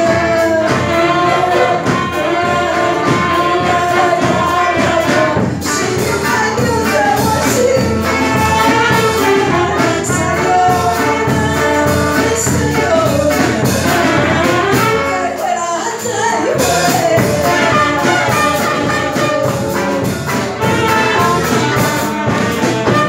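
Live band music: a woman sings into a microphone over saxophones and brass, with a drum kit keeping a steady beat.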